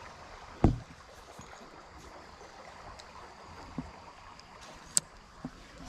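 Steady rush of creek water with one heavy thump a little over half a second in, then a few light clicks.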